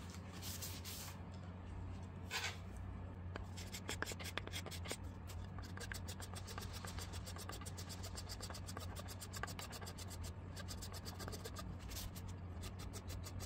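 Fine-grit sandpaper worked by hand over a resin 3D-printed casting pattern: quick, short rubbing strokes that run thick and fast from about three seconds in, with the part wiped with a cloth. A steady low hum lies underneath.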